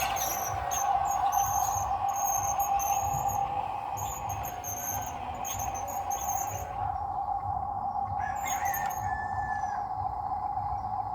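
Birds chirping: short high chirps repeated over the first seven seconds, and a falling whistled call about eight and a half seconds in, over a steady hum and low rumble.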